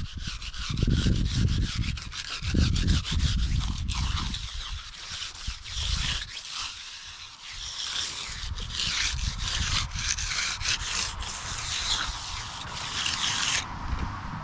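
A hand concrete finishing tool scraping and rubbing over setting concrete in repeated strokes. The scraping stops shortly before the end.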